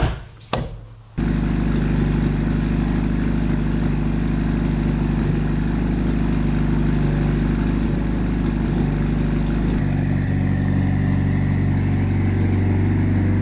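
Mitsubishi Lancer Evolution's turbocharged inline-four starting: a few short knocks, then the engine catches about a second in and settles into a steady idle, its note shifting slightly near the end.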